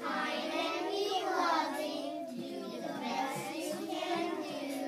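A group of young children singing together, one continuous phrase.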